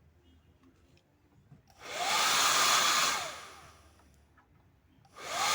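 BRAOUA hair dryer switched on twice in short runs, about three seconds apart: each time the fan motor whirs up to speed under a loud rush of blown air, then dies away. It runs normally again on its new power cord, the worn cord having been the whole fault.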